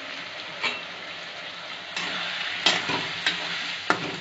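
Spiced onion-tomato masala and potatoes sizzling in oil in a metal kadai, being stir-fried (koshano) until the oil separates. From about two seconds in, a metal spatula stirs and scrapes through it, louder, with a few sharp knocks of the spatula against the pan.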